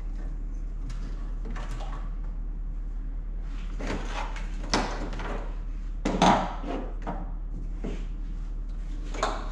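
Wiring harness being handled and routed in a car's engine bay: a series of short clicks and knocks from plastic connectors and clips, the loudest about six seconds in, over a steady low hum.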